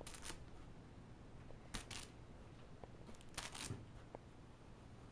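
A few brief, soft rustles or scratches from a cat at play, one near the start, two quick ones about two seconds in and a short cluster about three and a half seconds in, over a faint low room hum.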